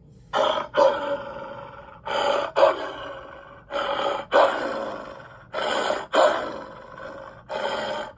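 Cartoon wolf's vocal sound effects, a short snarl-like burst followed at once by a louder cry that trails off, repeated five times about every two seconds.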